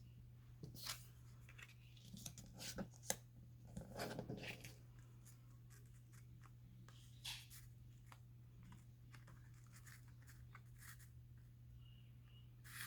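Faint, scattered rustles, clicks and taps of craft paper and fabric being handled, busiest about two to four and a half seconds in, with another rustle about seven seconds in, over a steady low hum.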